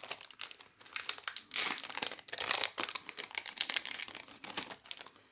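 Foil wrapper of a Topps Chrome trading-card pack crinkling and crackling as it is handled, a dense run of small irregular crackles and rustles.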